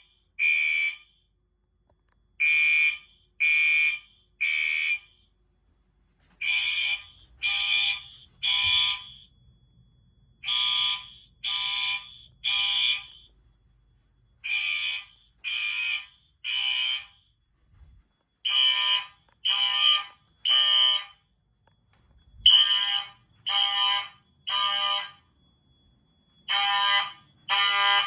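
A bank of fire alarm horns sounding together in the temporal-three (code 3) evacuation pattern: three short blasts, a pause, then three again, about every four seconds. The blend of horn tones shifts a little from one group to the next.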